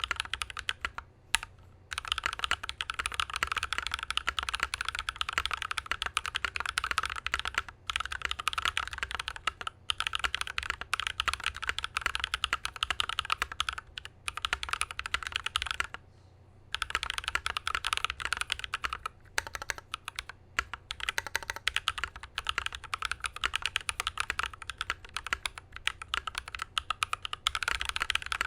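Fast continuous typing on a custom mechanical keyboard with lubed, filmed Holy Panda tactile switches in an aluminium-plated IDOBAO ID80 case with foam dampening, giving a muted, deep keystroke sound. The typing stops briefly several times, longest for about a second just past the middle.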